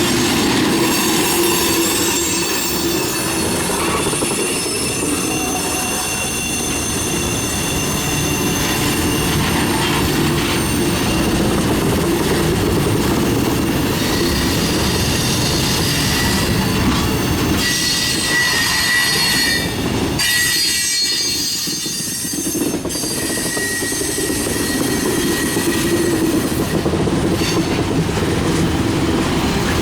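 Freight train cars rolling past steadily, with wheel flanges squealing in several high, drawn-out tones over the rumble of the wheels.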